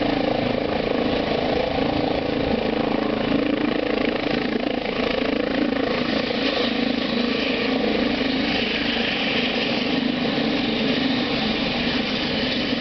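Eurocopter EC135 helicopter on the ground with its rotors turning and its twin turbine engines running steadily.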